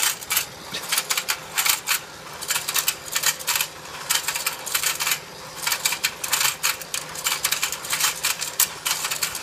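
Battery-powered rotating fishing game toy running: its plastic pond and fish turn with a rapid, uneven stream of clattering clicks over a faint motor hum.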